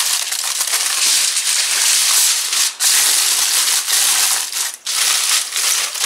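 Heavy-duty aluminum foil crinkling and crumpling as hands fold and press it around a food packet, with two short breaks.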